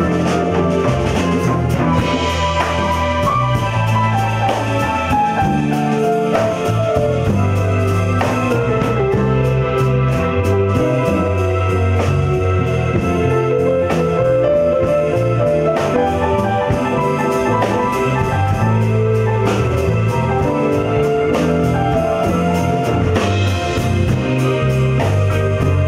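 A band playing live: drum kit, guitar and keyboards, with a steady beat and a melody line that steps downward a few seconds in.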